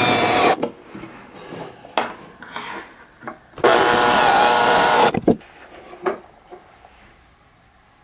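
Makita cordless drill running a bit at a steel angle bracket against a pine board, in two runs with a steady whine: a short one that stops about half a second in and a longer one of about a second and a half in the middle. Light knocks fall between and after the runs.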